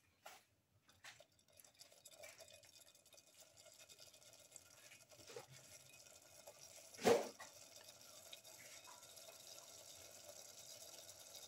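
Thick green masala gravy bubbling and sizzling in oil in a pan, with a couple of soft spatula scrapes near the start and one louder knock of the spatula against the pan about seven seconds in. The bubbling grows steadier after a couple of seconds.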